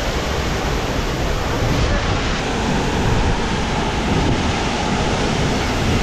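Steady, unbroken rush of falling water from the Athirapally waterfall.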